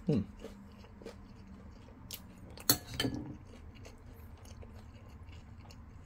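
A person chewing battered chicken in sticky sauce, with a metal spoon scraping and clinking against a ceramic bowl about three seconds in. A short falling murmur of voice comes at the very start.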